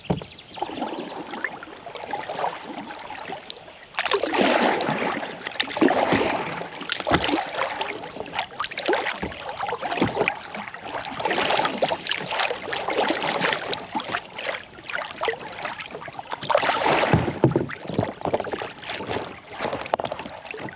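Kayak paddle strokes splashing in river water, the splashing swelling and easing every second or two.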